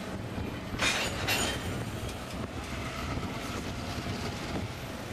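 EMD 567 diesel prime mover of a CN GP9RM locomotive running with a steady low rumble, with two short sharp high-pitched bursts from the train about a second in.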